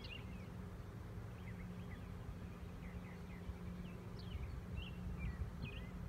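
Honey bee swarm humming steadily at one low pitch around the hive box, fading about five seconds in, while small birds chirp repeatedly.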